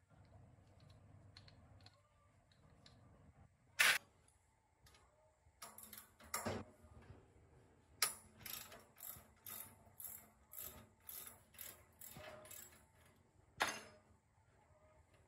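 Ratchet wrench clicking in a run of short strokes, about two a second, with a couple of sharper metal clicks among them.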